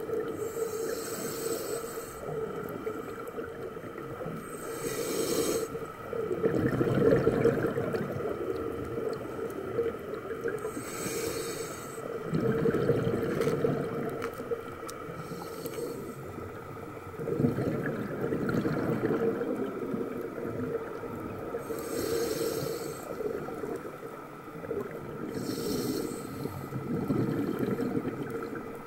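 Scuba diver breathing through a regulator underwater: a short hiss of each inhale through the demand valve, then a rumble of exhaled bubbles, repeating in a slow cycle about every five seconds.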